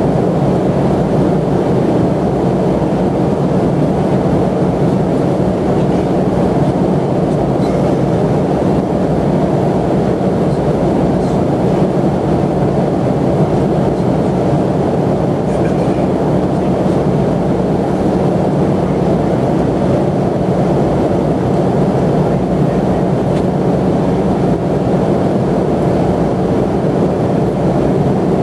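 Airliner cabin noise in flight: a steady, loud rushing drone of engines and airflow with a low hum under it.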